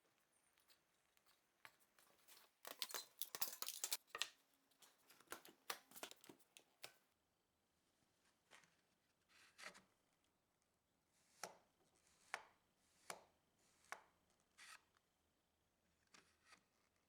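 Light knocks and clatter of wooden parts being handled and set together by hand: a quick flurry of knocks, then single sharp taps about once a second near the end.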